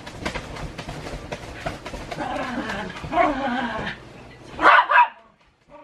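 A run of quick slaps and pats on bedding, then a poodle whining, and two sharp barks close together near the end.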